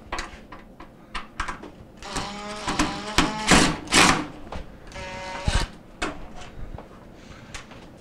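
Cordless drill with a Phillips bit backing out screws: the motor runs in two short bursts, about two seconds in and again about five seconds in, with a couple of sharp clicks in between.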